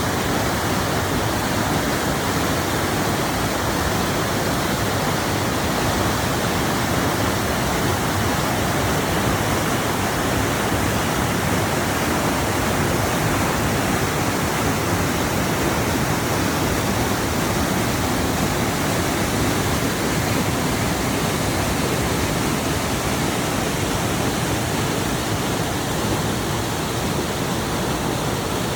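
Rushing water making a steady, even noise with no breaks.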